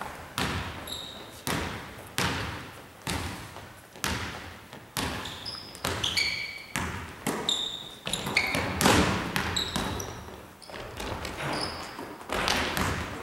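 Basketball being dribbled on a wooden gym floor, steady bounces about one and a half a second, echoing in a large hall. Short high sneaker squeaks from players cutting on the court come in between.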